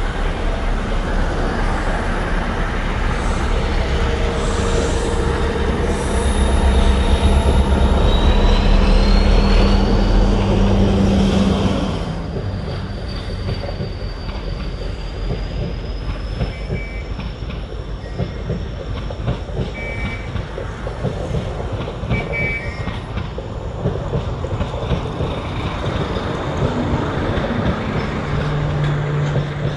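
Diesel-hauled passenger train passing close by. The locomotive's engine rumble is loudest up to about twelve seconds in and then drops away. The coaches follow, rolling past with a steady rumble of wheels on rail and a long, thin, high wheel squeal that rises slightly in pitch and later fades.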